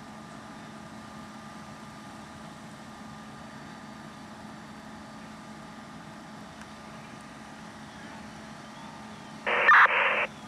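Fire apparatus engine running steadily. Near the end comes a loud, brief burst of two-way radio static lasting under a second.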